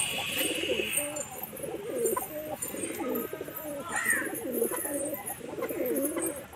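A flock of domestic pigeons cooing, many low throaty coos overlapping without a break. A short higher call rises briefly about four seconds in.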